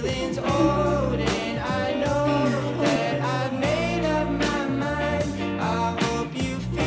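Background music with singing, a bass line and a steady beat.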